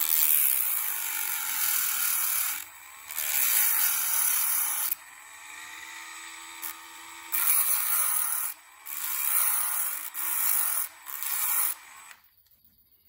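Dremel rotary tool with a thin abrasive cutting wheel grinding a slit into a small copper piece, in several bursts of a few seconds each that stop shortly before the end. The footage is sped up, so the motor sounds faster than the low speed it actually runs at.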